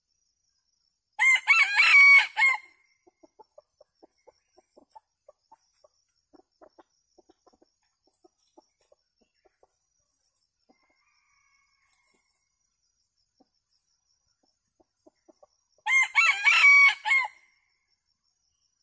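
A red junglefowl rooster crows twice, about fourteen seconds apart, each crow lasting about a second and a half. Faint short clucks come in between.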